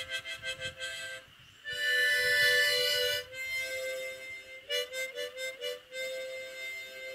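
Harmonica music: quick repeated chords at first, then a long held chord, then a run of short notes, the last note dying away near the end.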